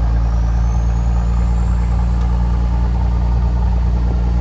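Scania torpedo truck's diesel engine running steadily while driving, heard from inside the cab as a deep even drone. A faint high whine rises in pitch over the first couple of seconds, then holds steady.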